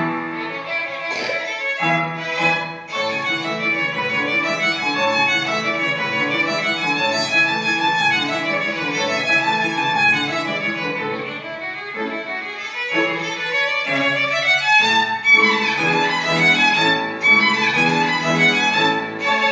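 Violin playing a melody over a lower accompaniment.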